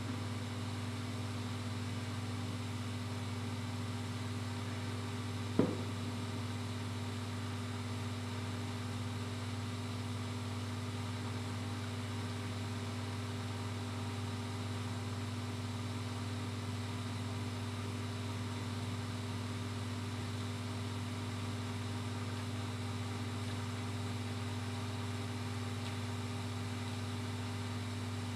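A steady low mechanical hum with a few fixed tones, with one short sharp click about six seconds in.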